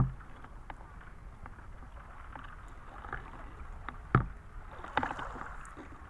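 Lake water sloshing and splashing around a wading fisherman as he gathers a cast net and lifts it out of the water, with a few sharp knocks at the start and about four seconds in.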